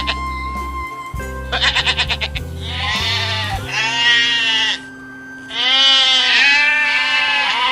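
Farm animal calls over background music: a short, fast quavering burst about a second and a half in, then two long drawn-out calls, the second starting about halfway through and ending near the end.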